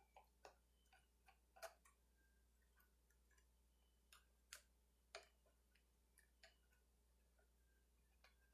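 Faint, irregular clicks and taps of a screwdriver working the screws in an old McCulloch chainsaw's housing, with a few sharper clicks now and then.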